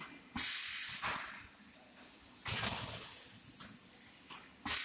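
Automatic high-frequency PVC bag welding machine cycling: three sharp hisses of compressed air from its pneumatic press, about two seconds apart, each fading over about a second. A thin high whine sounds briefly with the second hiss.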